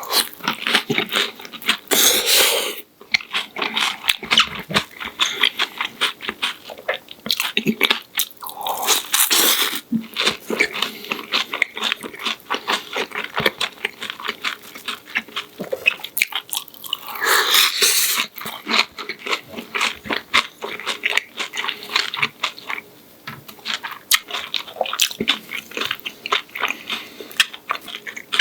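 Close-miked chewing and crunching of a breaded, deep-fried pork cutlet, a steady run of wet crackles and crunches, with three louder crunching bites about 2, 9 and 17 seconds in.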